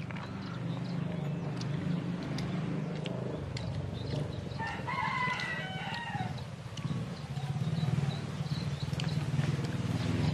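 A rooster crows once, about four and a half seconds in, for about two seconds, over a steady low hum.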